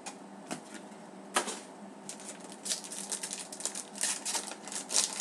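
Trading cards being handled and flipped through by hand: a sharp click about a second and a half in, then a quick run of light clicks and rustles that thickens through the second half.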